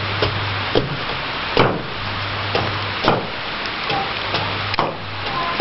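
A blade chopping into a raw Pueraria mirifica tuber standing on a wooden chopping block: about eight sharp chops at uneven intervals, roughly one every half second to second.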